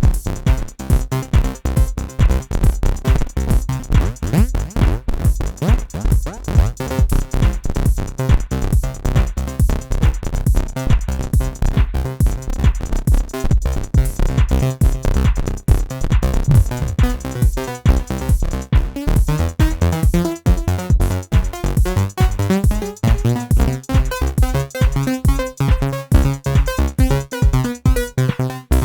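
Electronic music played live on an Akai MPC One sampler and a Korg microKORG synthesizer: a steady drum-machine beat under synth and keyboard parts, with held synth chords coming forward in the last third.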